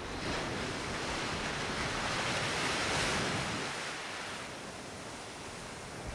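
A rushing whoosh effect with no distinct tones, swelling to its loudest about three seconds in and then easing off.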